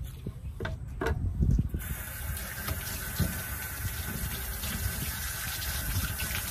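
A few knocks and thumps, then about two seconds in a kitchen-style faucet starts running and water pours steadily into a stainless-steel sink as a fish fillet is rinsed under the stream.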